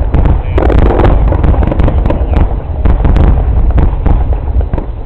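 Fireworks finale: many shell bursts going off in quick succession, overlapping into a continuous low rumble with sharp bangs on top.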